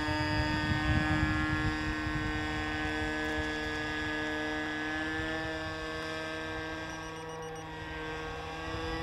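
Radio-controlled model airplane's glow-fuel (methanol–nitromethane) engine running in flight, a steady high drone. Its pitch sags slightly about seven seconds in and picks up again near the end, with a low rumble in the first couple of seconds.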